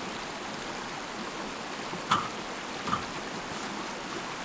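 Steady rush of water from a small creek, with two brief knocks about two and three seconds in.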